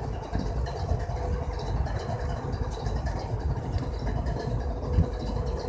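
BNSF GE ES44AC diesel-electric locomotive idling while parked, a steady low rumble with a faint steady whine over it. Its engine is a GEVO-12 V12 diesel.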